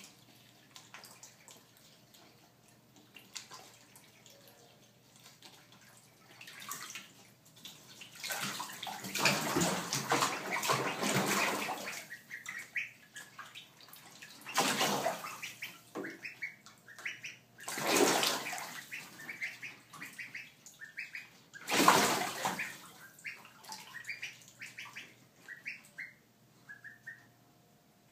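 Ducklings peeping in a bathtub of water, with bursts of splashing: a long stretch of splashing about eight seconds in, then three shorter splashes. Quick high peeps come between and after the splashes.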